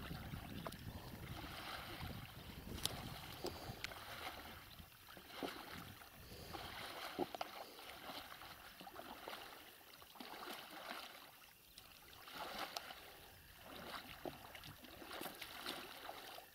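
Oars of an inflatable rowboat dipping and pulling through calm water in soft, regular strokes, one every second and a half to two seconds, with a few light knocks of the oars.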